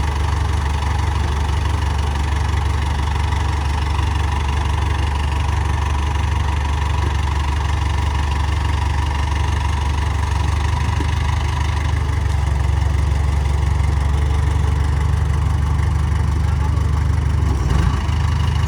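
Heavy machinery's diesel engine running steadily at low revs, somewhat louder from about twelve seconds in.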